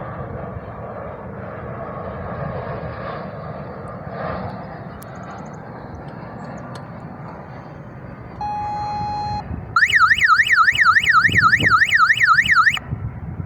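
Bike alarm triggered by a knock on the bike: about two-thirds of the way in it gives a steady warning beep for about a second, then a loud warbling siren sweeping up and down about four times a second for some three seconds, which cuts off suddenly. Wind buffets the microphone throughout.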